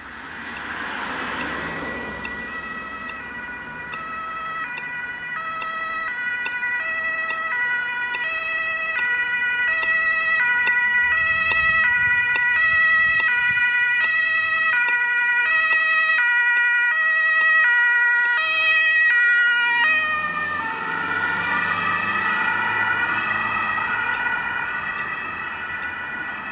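German two-tone emergency siren (Martinshorn) on a Mercedes-Benz Malteser emergency van, its two notes alternating steadily and growing louder as the van approaches. About 20 seconds in, as it passes, the pitch drops and the tones waver and fade as it drives away. At the start there is a brief rush of a passing vehicle.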